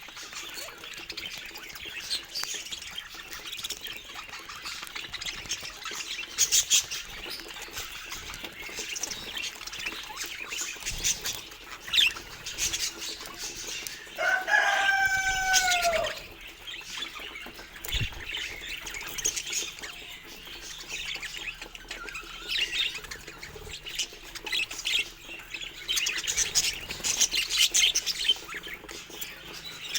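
Budgerigars chattering with many short high chirps and clicks, and a louder call of a few falling notes about halfway through.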